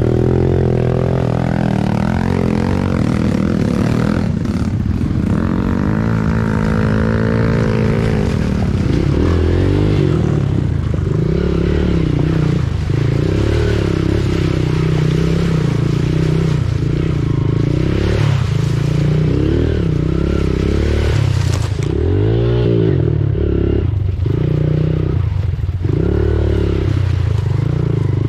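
Motorcycle engine running as the bike rides through mud and ruts, the throttle opened and eased off in repeated surges about every two seconds. Knocks and rattles from the bike bouncing over the ruts.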